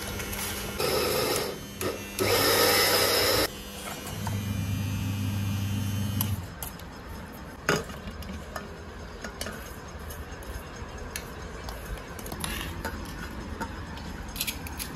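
Electric mixer grinder's steel dry jar grinding roasted dals, dried red chillies, curry leaves and garlic into a coarse powder, run in two short loud pulses and then a steady motor hum. About six seconds in the motor stops, and a few clinks and scrapes of a spoon on steel follow.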